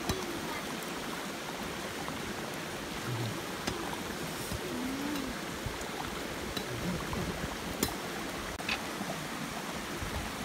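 Shallow stream running over rocks: a steady rushing hiss, with a few sharp clicks on top.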